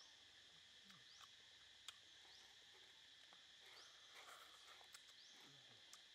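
Near silence: faint outdoor ambience of a steady high insect drone, with short rising chirps every second or so and a few soft clicks.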